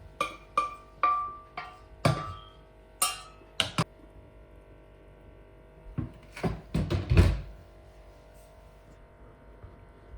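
Metal kitchenware clattering: a quick series of sharp knocks and clinks, some with brief metallic ringing, then a second burst of clatter about six seconds in.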